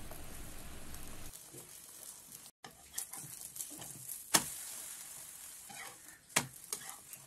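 Egg omelette sizzling quietly in butter on a flat griddle pan, with a few sharp clicks and scrapes of a metal spatula against the pan as it is lifted and flipped; the loudest click is about four and a half seconds in.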